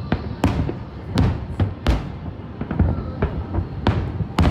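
Aerial firework shells bursting in quick, irregular succession: sharp bangs, with smaller crackling reports between them.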